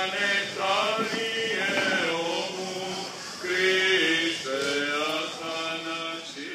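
Male voice singing Greek Orthodox Byzantine chant in slow, drawn-out phrases, each note held for a second or more and sliding into the next.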